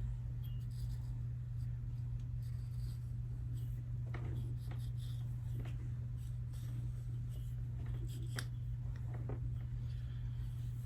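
Scattered light scratching and rustling of hair and a comb being handled, with a few small clicks, over a steady low electrical hum.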